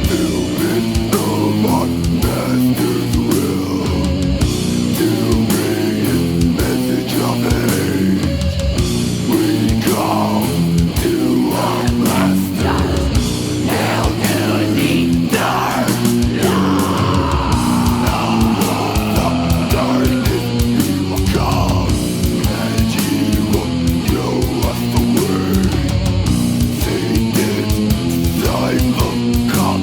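Death metal played from a 1995 cassette recording: distorted electric guitars over fast, dense drumming, loud and unbroken.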